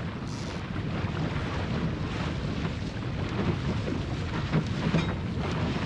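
Wind buffeting the microphone over water rushing and splashing along the hull of a small plywood sailing skiff (a Goat Island Skiff) moving fast in a strong breeze, with a few sharper splashes.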